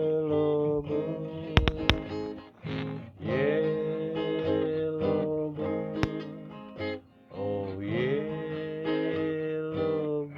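Acoustic guitar playing the closing bars of the song in three sustained phrases, ending on a fading final chord. A couple of sharp clicks stand out about a second and a half in, the loudest moment, with another about six seconds in.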